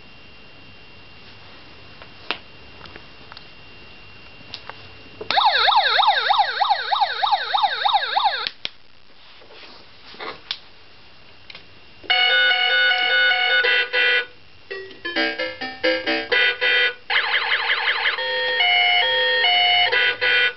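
Sound module of a children's battery-powered police motorcycle (model 9910), set off by a few button clicks. It plays a fast electronic police siren wail for about three seconds, then after a pause a beeping electronic tune with short gaps and another brief siren stretch.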